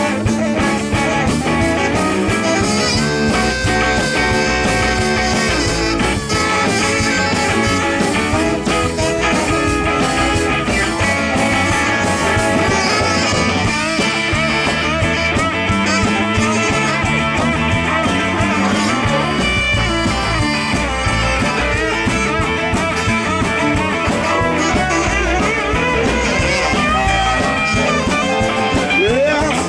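Live blues-rock band playing an instrumental break, with guitar prominent.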